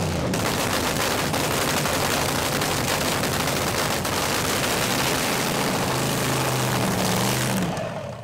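Supercharged nitro-burning V8 of a fuel altered drag car running at a loud, crackling cackle idle through its open zoomie headers. The sound dies away sharply near the end.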